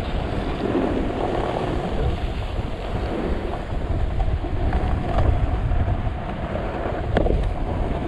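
Snowboard edges scraping and carving over snow and ice, recorded by a GoPro under a foam windscreen: a steady, loud scraping hiss with a sharp tick about seven seconds in.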